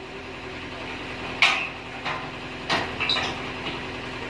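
Combine harvester's engine running steadily at idle. Over it come a few sharp metal clanks, the loudest about one and a half seconds in and the others following within the next two seconds.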